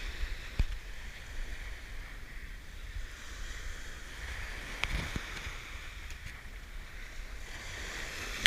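Small surf breaking and washing up a sandy beach, swelling and fading, with wind rumbling on the microphone. A couple of brief sharp clicks stand out, about half a second in and near the middle.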